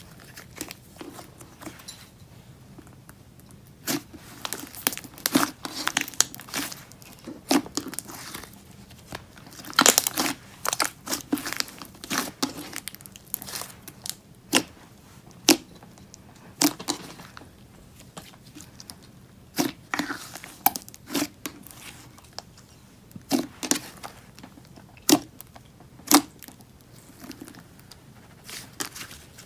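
Slime being squished, stretched and poked by hand, giving irregular sharp pops, clicks and crackles.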